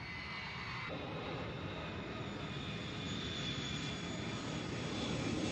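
Jet airliner engines at takeoff: a steady rushing noise with a faint high whine that grows gradually louder.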